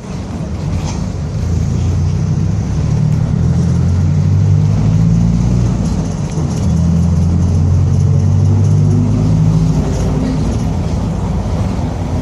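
Mercedes-Benz OF-1722M bus under way, its diesel engine and drivetrain giving a steady low drone with the rumbling differential ("diferencial roncando"). The drone eases briefly about six seconds in and drops off near ten seconds in.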